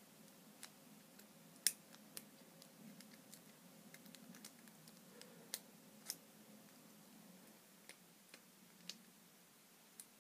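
Faint, scattered clicks of a lockpick working the pins inside a cheap padlock's keyway, the loudest about a second and a half in; the lock is being picked and has not yet opened.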